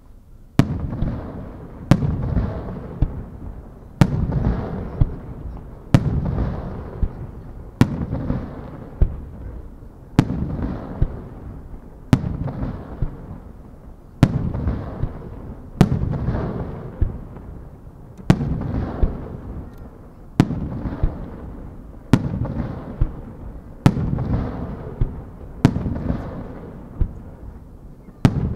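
Aerial firework shells bursting one after another, about one every two seconds. Each sharp bang is followed by a long rumbling echo that dies away before the next.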